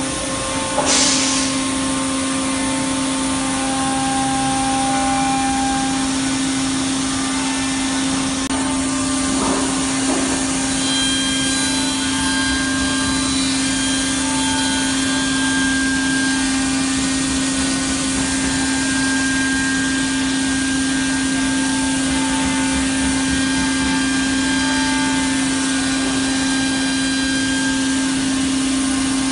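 Spindle of a PADE six-axis CNC router running with a steady whine over a constant rush of noise while its cutter mills a solid-wood chair part. A short louder burst comes about a second in.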